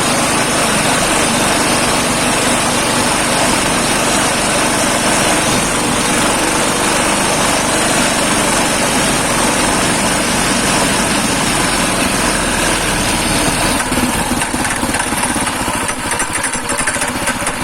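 Small engine of a homemade two-wheel-drive motorcycle running steadily; about fourteen seconds in it eases off and runs slightly quieter and more unevenly.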